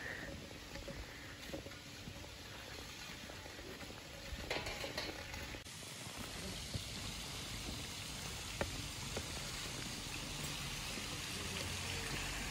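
Faint, steady hissing background noise with a few light clicks.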